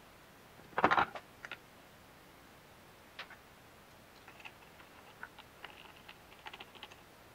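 Small metal parts and a hex key clicking and tapping while parts are fitted to a machined aluminium engine casing. A louder clatter about a second in, then a run of light ticks.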